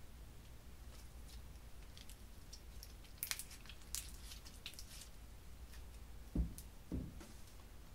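Clear glitter slime being stretched, folded and squeezed by hand, giving faint squishes and sharp little clicks and crackles, with two soft low thuds near the end.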